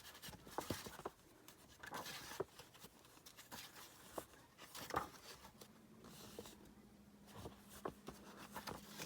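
Faint paper handling: rustling, sliding and light taps as large calendar pages are moved about. A faint steady low hum comes in about halfway through.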